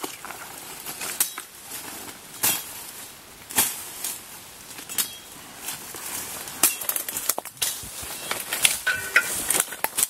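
Footsteps pushing through dense bamboo undergrowth: irregular sharp snaps of breaking twigs and canes over the rustle of leaves brushing past.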